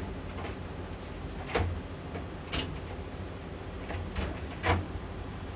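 Short knocks and taps of kitchen handling while meat is salted on a cutting board, four or so spread through, over a steady low hum.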